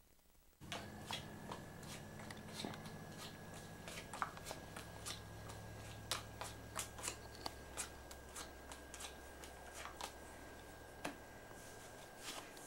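Playing cards being shuffled and handled at a poker table: a faint run of irregular light clicks and snaps starting about half a second in, over a steady thin high whine and low hum.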